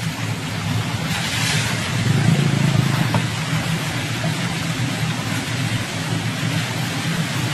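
Motor-vehicle traffic running with a steady rumble, growing louder about two seconds in.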